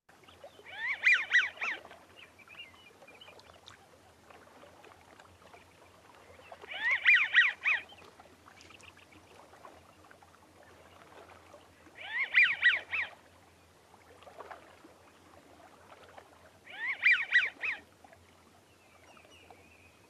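American wigeon giving its wheezy whistled "zew zew-zew zew" call, four times, each bout about a second long and about five seconds apart.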